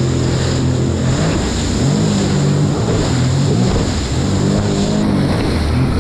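Sea-Doo personal watercraft engine and jet drive running under way, its pitch rising and falling a couple of times, over the constant rush and spray of rough water against the hull.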